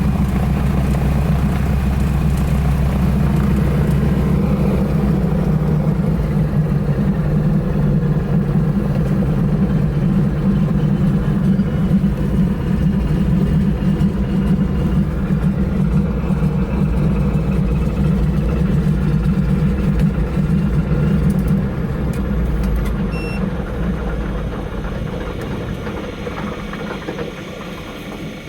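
Float plane's engine running steadily at high power, then easing off and fading over the last several seconds.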